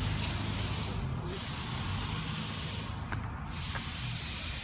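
A steady hiss over a low rumble. The hiss thins out of the high end briefly twice, about a second in and about three seconds in.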